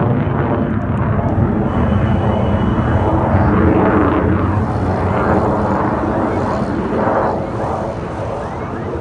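F-16 fighter jet's engine noise as it flies a looping manoeuvre overhead, loud and steady, easing off slightly near the end.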